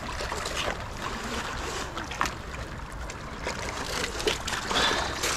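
Shallow seawater sloshing and lapping among shoreline rocks, over a low wind rumble on the microphone. A few short knocks and rustles come from a fabric fish bag being handled at the water's edge.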